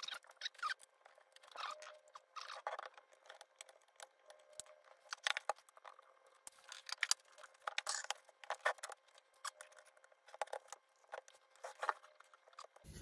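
Scattered light clicks, taps and scrapes of hands and a screwdriver working on the open metal chassis and case of a Kenwood TS-2000 transceiver, with no steady sound between them.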